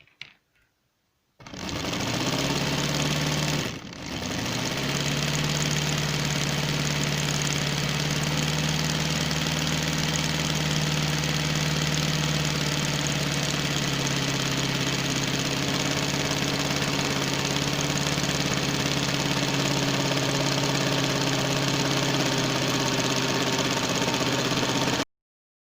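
Small 1.5-volt electric motor driving a Lego Technic one-cylinder engine model, running with a steady hum. It starts about a second and a half in, falters briefly about four seconds in, then runs evenly and cuts off abruptly near the end.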